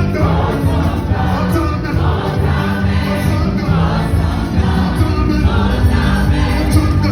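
Gospel music with a choir singing over a steady bass.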